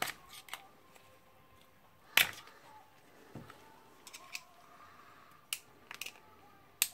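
Scattered small metal clicks and ticks of hand tools prying at a steel retaining ring on a rotary hammer's barrel parts. There are about eight irregular clicks, the loudest about two seconds in.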